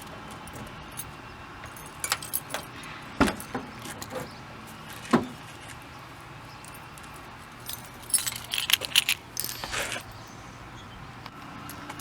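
Metal clinks and knocks of tools and parts being handled: a few separate sharp knocks, then a burst of jangling about eight seconds in.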